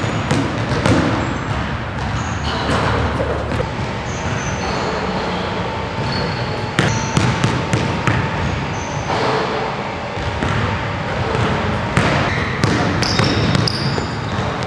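A basketball being dribbled on a hardwood gym floor, a run of repeated bounces, with a few brief high sneaker squeaks scattered through.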